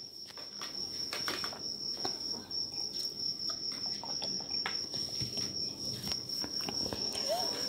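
A steady, high-pitched pulsing trill, with faint scattered ticks and scrapes.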